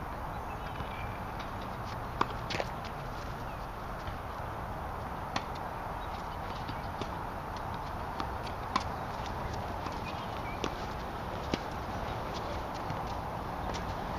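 Tennis balls being struck by rackets and bouncing on a hard court: sharp pops spaced irregularly a second or more apart, the loudest about two seconds in and again near nine seconds, over steady background noise.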